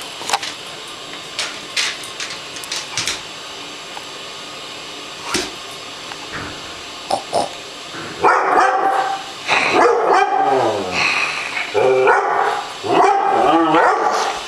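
Airedale terrier barking and whining in alarm at a mop it has never seen before, in a loud, dense run of calls starting about eight seconds in. Before that there are only scattered clicks and knocks.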